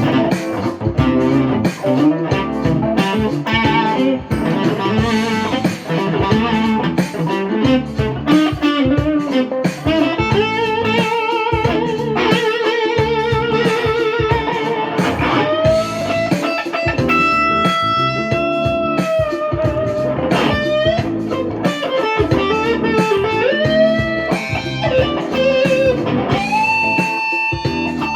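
Electric guitar played through a tube amplifier freshly fitted with new power tubes, as a sound check. It plays lead lines: quick runs of picked notes at first, then long held notes with wide vibrato and notes bent up in pitch.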